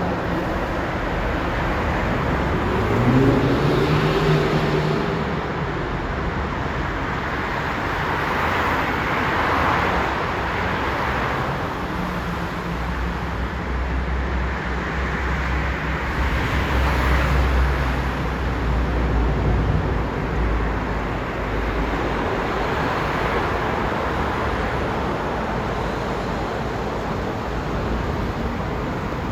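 A Volvo tractor unit's diesel engine running as it slowly hauls a heavy low-loader trailer past, over steady road noise. The engine rises in pitch briefly about three seconds in, and a deep rumble swells and fades in the middle.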